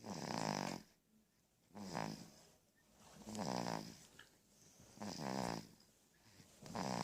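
A sleeping baby snoring: five regular snores about a second and a half apart, each a short buzzy rasp.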